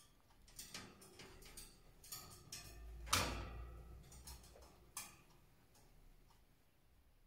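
Cockatiels pecking and cracking soaked, sprouted wheat grains in a plastic feed dish: a scatter of small clicks and taps, with one louder knock about three seconds in.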